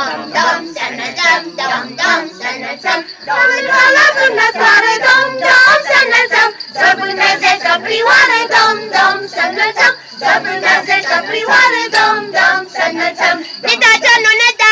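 A group of carolers singing together, several voices at once: a Romanian Christmas colind.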